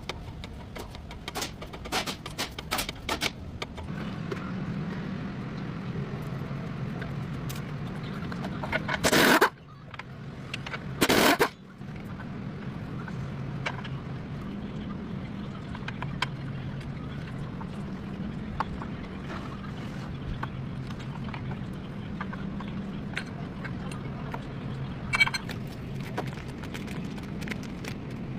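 GMC truck engine running steadily, with scattered clicks in the first few seconds and two loud knocks about two seconds apart near the middle.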